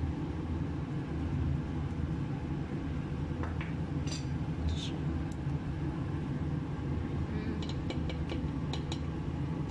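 Steady low kitchen hum with a few light clinks and knocks on a stainless steel cooking pot, around four seconds in and again in quick succession near the end, as a wooden spoon stirs the stew.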